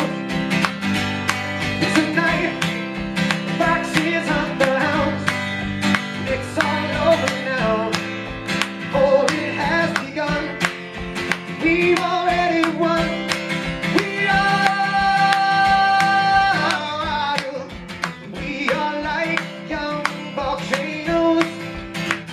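Live rock band performance: a male lead voice sings over strummed guitar and a steady beat, holding one long note about two-thirds of the way through.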